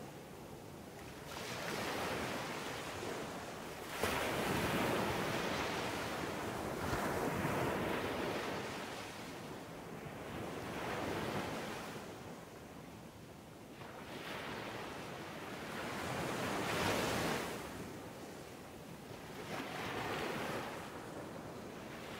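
Ocean surf breaking on a beach, the waves swelling and washing in over and over every few seconds. One break comes in suddenly and loudly about four seconds in.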